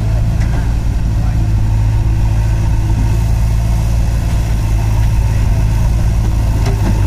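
Diesel engines of a Mahindra 555 DI four-cylinder tractor and a JCB backhoe loader running together at a constant speed, a steady low drone with no revving.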